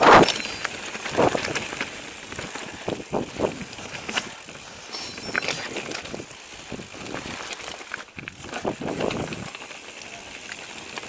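Mountain bike rolling over a rocky, stony trail: a steady crunch of tyres on stones, broken by irregular knocks and rattles as the bike hits rocks, the loudest right at the start.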